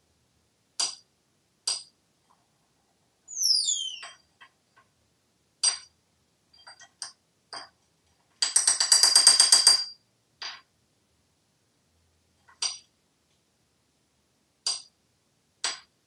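African grey parrot striking a metal spoon on the countertop: single ringing clinks every second or two, with a fast rattling run of strikes for about a second and a half past the halfway point. A short falling high squeak comes about three seconds in.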